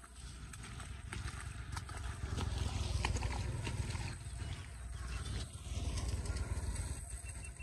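Footsteps splashing through shallow floodwater on a paved road, with a low wind rumble on the microphone.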